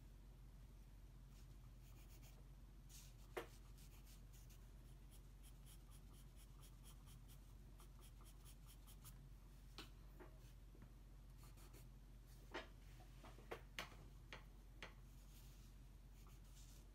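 Faint scratching of a pencil on drawing paper as shading is laid in, over a steady low hum, with a few short sharp ticks near the middle and toward the end.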